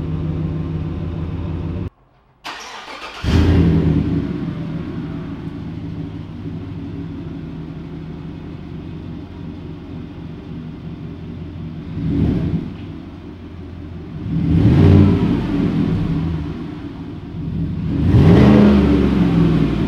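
GMC Sierra 1500 V8 exhaust, breathing through BBK shorty headers, idling steadily. About two seconds in it drops out briefly, then comes back with a sudden surge of revs and settles to idle. Near the end the engine is revved three times, each rev rising and falling, the last the loudest and longest.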